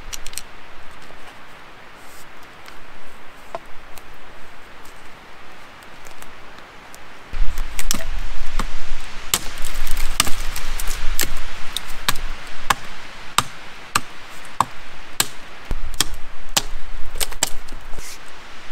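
Soft rustling, then from about seven seconds in a quick, irregular run of sharp wooden cracks and knocks, several a second at times: dry wood being chopped.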